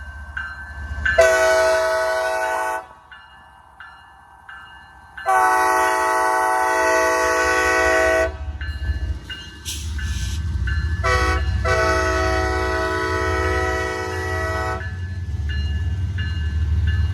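Diesel locomotive's multi-chime air horn sounding the grade-crossing signal (long, long, short, long) over the low rumble of the locomotive. Grade-crossing bells ring about twice a second before and after the blasts.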